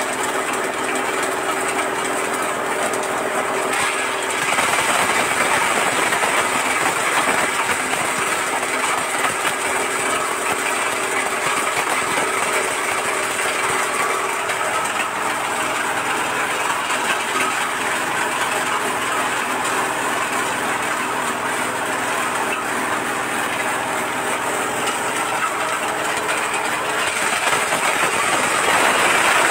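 Areca-nut cracking machine running with nuts feeding through it: a steady motor hum under a dense rattle of nuts being cracked. It gets louder about four seconds in and again near the end.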